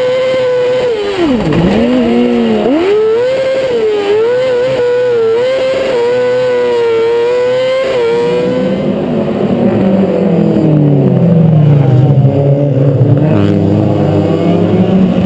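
Kartcross buggy's engine screaming at a steady high pitch, heard from onboard, dropping sharply on a lift about one and a half seconds in and again about a second later, then wavering as it takes the corners. About eight seconds in it gives way to several racing cars' lower engines revving hard as they race through a bend.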